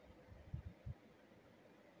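Near silence with a faint steady hum and two or three soft, low thuds around half a second to one second in.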